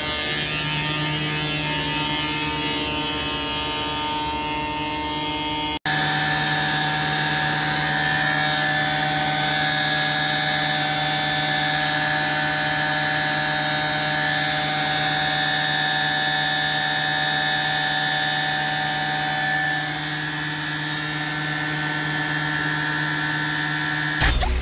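PTO-driven pneumatic blower on a frac sand truck, running under load at a steady pitch with a mechanical whine and the truck's diesel engine beneath it. The sound drops out for an instant about six seconds in.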